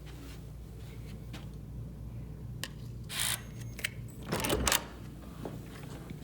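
A few short scrapes and clinks of objects being handled over a steady low hum, the loudest cluster of clinks about four and a half seconds in.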